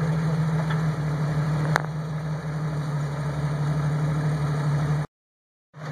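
Jeep Wrangler engine running steadily at low revs as it crawls over boulders, with one sharp click about two seconds in. The sound cuts off abruptly about five seconds in.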